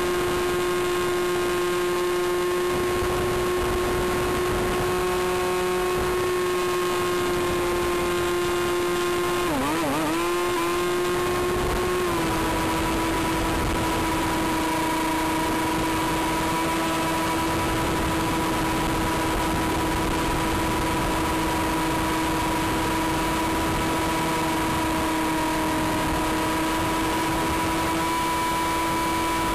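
Electric motor and propeller of an Aerobird Challenger RC plane whining steadily in flight, heard from on board with a steady rush of air over it. About ten seconds in the pitch wavers and dips for a couple of seconds, then holds slightly lower.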